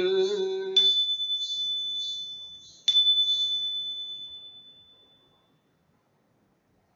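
A chanted goeika Buddhist hymn line ends, and a small ritual bell is struck twice, about two seconds apart. Each strike leaves a high, clear ring that fades away.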